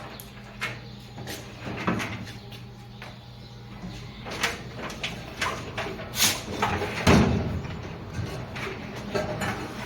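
Scattered knocks and metal clanks of dryer panels and parts being handled during repair work, with one heavy thump about seven seconds in.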